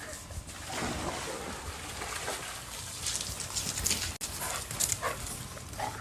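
A dog making small sounds over a steady background hiss, with one sharp click about four seconds in.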